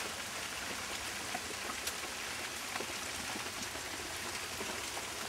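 Steady hissing noise with faint scattered ticks.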